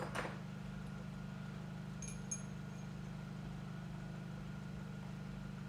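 Steady low mechanical hum with an even, engine-like drone, and a couple of faint light metal clinks about two seconds in.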